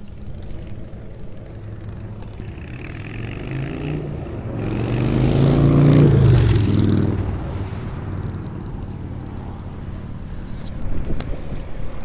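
A heavy road vehicle's engine passing close by, swelling to its loudest about six seconds in and then fading.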